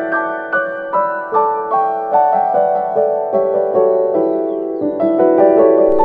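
Background instrumental music: a gentle keyboard melody of piano-like notes, struck about two or three times a second, each ringing and fading.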